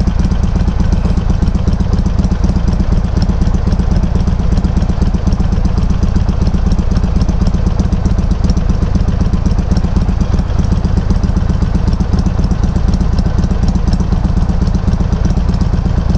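Harley-Davidson Sportster 883's air-cooled V-twin engine running steadily through Customer slip-on exhaust tips with low baffles, picked up by a microphone mounted on the bike. The sound is a deep, even beat with no revving.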